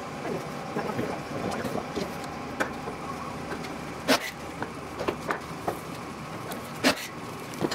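Irregular light clicks and taps of small metal parts being handled on an aluminium aircraft fuselage, as a tab and snap bushing are fitted to a rib, with two sharper clicks about four and seven seconds in. A steady hum runs underneath.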